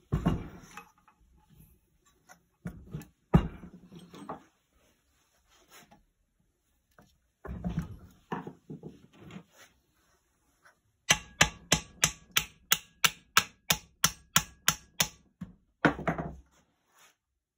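Metal knocks and clanks from tools and parts being handled while a small generator's alternator is taken apart. About two-thirds of the way in comes a run of about a dozen evenly spaced sharp taps, roughly three a second, followed by one last knock.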